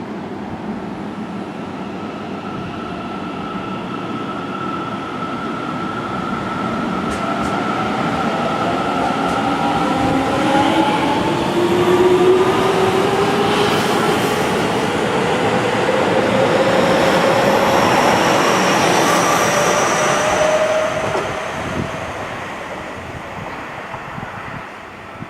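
Seibu Railway electric commuter train accelerating past. Its traction motors whine in several tones that rise steadily in pitch, growing louder to a peak midway and then fading as the train moves away, with wheel noise on the rails.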